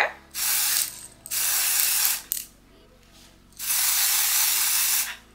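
Aerosol spray can hissing in three bursts onto a wig's lace front. The first two are short, under a second each, and the last, about two-thirds of the way in, is longer, about a second and a half.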